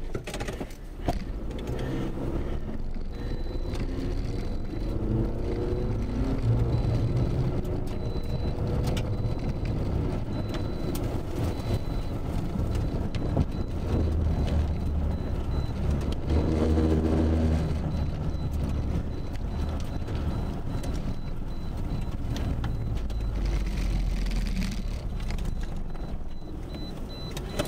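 A car driving along a gravel road, heard from inside the cabin: steady engine and tyre noise, with the engine note rising and falling as it speeds up and slows.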